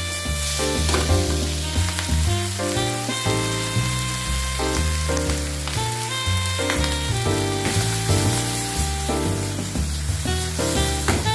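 Chopped pork sisig sizzling in a hot frying pan as it is tossed and stirred, with background music playing throughout.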